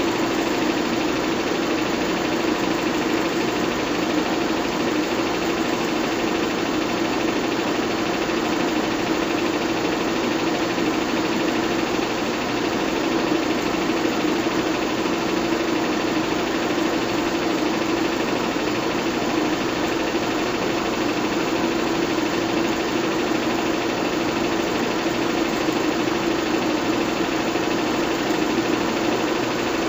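Bell & Howell 122 LR 8mm film projector running steadily: a continuous mechanical whir of motor and film mechanism with a steady low hum.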